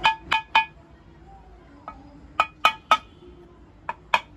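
Metal hand tool tapping on a motorcycle engine's metal crankcase: sharp, ringing clinks, mostly in quick runs of three with short pauses between. This happens as the crankcase half is seated over its gasket and dowels.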